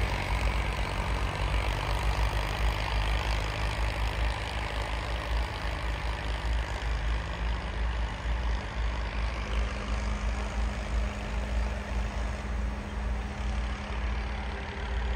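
Diesel tractor engines running steadily under load as they pull rotavators through the soil, heard from across the field; the engine note rises a little about halfway through.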